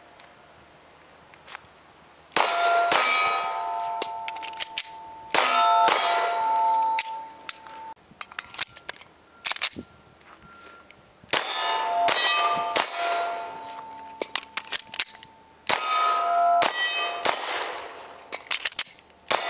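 Glock 19 9mm pistol fired in quick strings of shots, each shot answered by steel targets ringing as they are hit. There are four strings a few seconds apart, the ringing hanging on after each.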